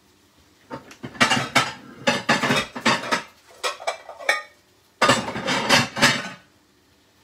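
Metal utensils clattering and scraping against a dish as cooked chips are plated up, in a long run of about three and a half seconds and a shorter one of about a second and a half.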